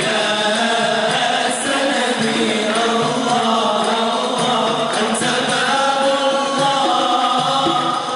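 Male ensemble singing a Moroccan madih and sama' devotional chant together, voices held on long notes that glide slowly in pitch.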